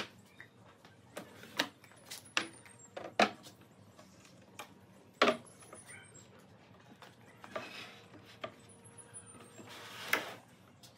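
Wooden knocks and clicks as a hinged pine frame is handled on a workbench: panels folding shut and parts bumping together, a few sharp knocks standing out. Near the end come two longer scrapes as the unit is slid and turned over on the bench.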